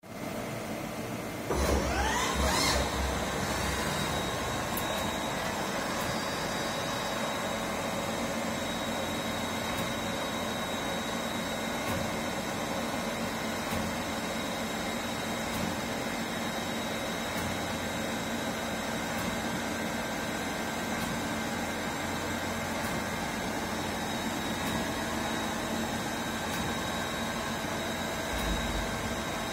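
MAHO MH 1000 S CNC milling machine on a test run, running up with a rising whine about a second and a half in, then running steadily with a high whine over a hum. No cutting: the table is empty.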